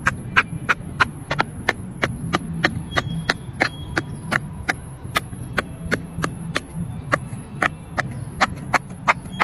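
Silicone pop-it fidget toy bubbles being pressed in by fingers, one sharp pop after another in a steady rhythm of about three pops a second.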